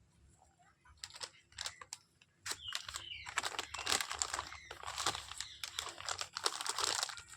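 Ringneck parrot biting and chewing food: rapid crackling and crunching with tearing, sparse at first and dense from about two and a half seconds in.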